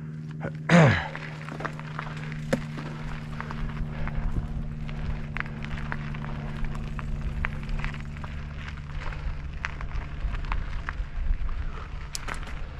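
A vehicle engine running steadily, with scattered knocks and rattles and a low rumble throughout as it rides over rough trail. About a second in, a loud sharp sound sweeps quickly down in pitch.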